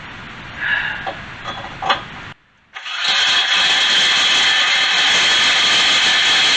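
A few short scrapes and squeals, a brief pause, then a cordless drill starts about three seconds in and runs steadily at high speed. Its large bit is boring out a bolt hole in metal.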